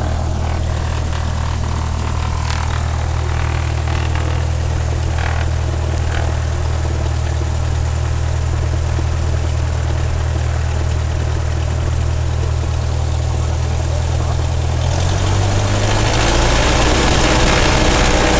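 Piston engine and propeller of a single-engine light plane, heard from inside the cabin, running steadily at low power. About fifteen seconds in the note shifts and grows louder as the throttle is opened for the takeoff run.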